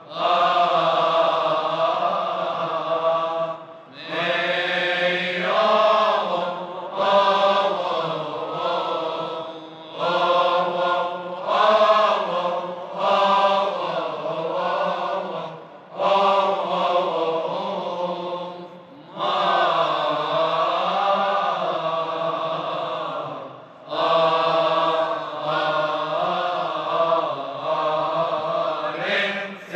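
Male voices chanting a Coptic Orthodox liturgical hymn in long phrases that waver in pitch, broken every few seconds by short pauses for breath.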